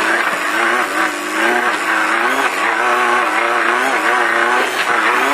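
Off-road race car's engine heard from inside the car, its revs rising and falling again and again as it is driven hard over rough desert terrain.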